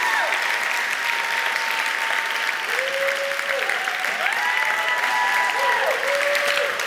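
Large audience applauding steadily, with several long held calls rising and falling over the clapping.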